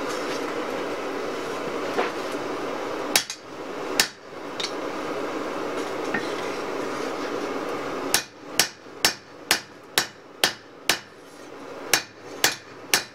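Steady rush of air from the forge blower with a few scattered hammer strikes, then from about eight seconds in a hand hammer striking hot knife steel on an anvil at about two blows a second, ringing at each blow.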